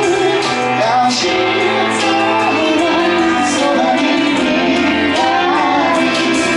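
A man singing a pop song live into a microphone over an instrumental backing.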